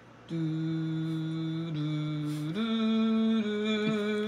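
Short music cue of long, steady held notes in a chant-like voice. It comes in just after a brief silent gap and steps in pitch three times: slightly down, then up, then slightly down again.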